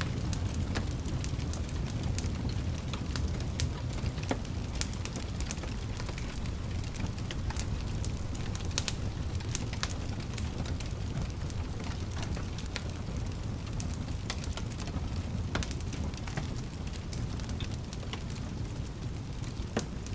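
Wood fire burning in a fireplace: a steady low rumble of the flames with frequent irregular sharp crackles and pops from the burning logs.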